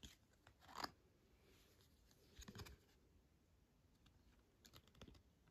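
Near silence with a few faint clicks and light rubbing of stiff photocards being handled and swapped between the hands.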